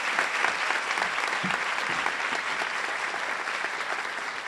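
Audience applauding: many hands clapping in a dense, even patter that starts to die away near the end.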